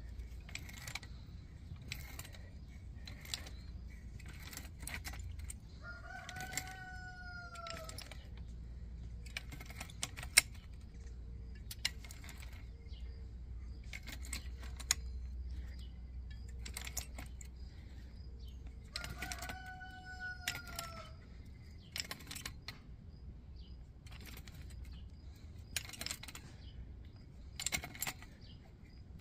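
Metal clinks and taps of pipe wrenches on threaded brass gas fittings as a test-gauge assembly is tightened. A long, arching animal call sounds twice in the background, about six and nineteen seconds in.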